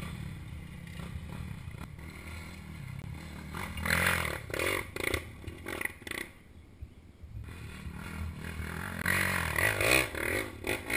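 Motocross bike engine running at low revs, heard through the bike-mounted camera. Two spells of louder, rough noise come over it, a short one about four seconds in and a longer one near the end.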